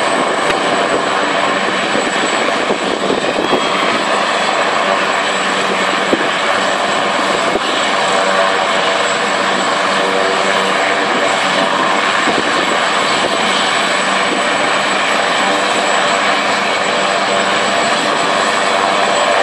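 AgustaWestland AW139 helicopter's twin turboshaft engines and main rotor running steadily on the ground before lift-off, with a steady high turbine whine over the engine and rotor noise.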